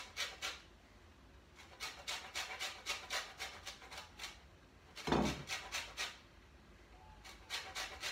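Lemon rubbed on a stainless-steel box grater to take off the zest: quick rasping strokes, about four a second, in runs with short pauses between. A dull knock about five seconds in.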